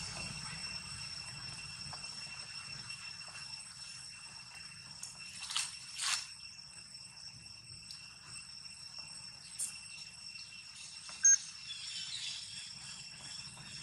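Insects chirring steadily in high, even tones over a low background hum. A few short rustles come in the middle, and one brief sharp sound near the end is the loudest moment.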